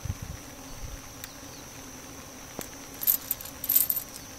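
Light metallic clicks and clinks of loose .38 Special cartridges being handled and loaded into the revolver's cylinder, with a cluster of jingly clinks about three seconds in. A steady high insect drone runs underneath.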